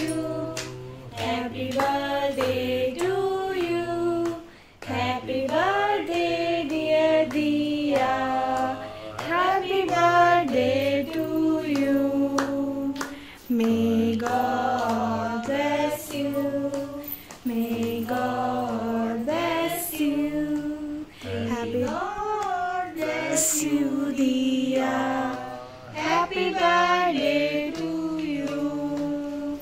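A song with a female singing voice over a low, steady backing accompaniment, sung in phrases of a few seconds with short breaks between them.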